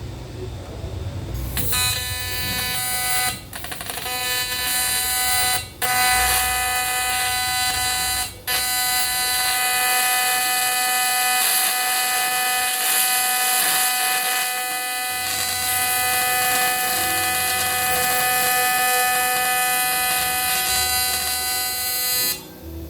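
AC TIG welding arc buzzing steadily while welding the cracked aluminium engine case at the oil-drain bolt. It starts about a second and a half in, breaks off briefly three times, then holds steady until just before the end.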